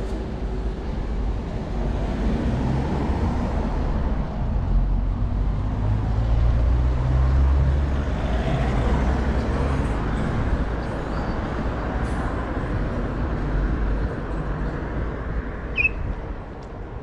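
Road traffic: cars going past with engine and tyre noise, a low rumble that swells about halfway through and then eases off, with a short high chirp near the end.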